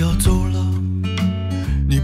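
Guitar-led music with a deep bass line, the notes changing every fraction of a second.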